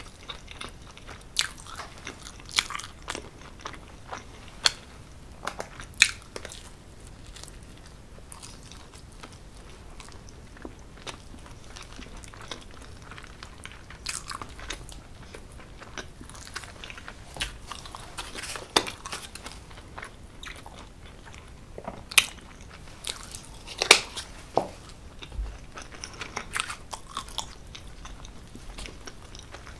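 Close-miked eating sounds of a person eating cheese pizza: irregular crunchy bites and wet chewing, with a few much louder bites scattered through.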